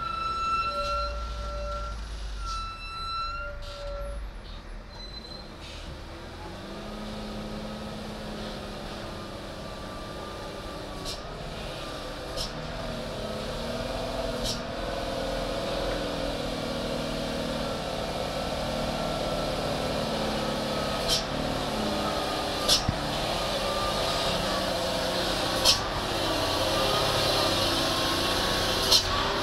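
Engine of a sand-laden diesel dump truck running at low speed as it crawls closer, growing steadily louder, with several sharp clicks or knocks in the second half. The first few seconds hold some high held tones before the engine comes up.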